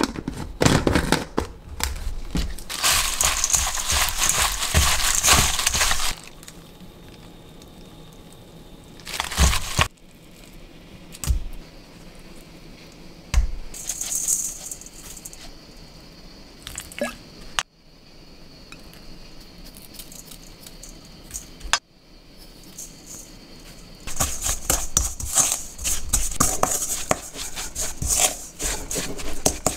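Kitchen food-prep handling noise. First a plastic bag crinkling and rubbing over a stainless steel bowl, then a few sharp clinks of a spoon on the bowl, and near the end a spatula stirring thick chili paste against the stainless steel bowl with a dense scraping and clicking.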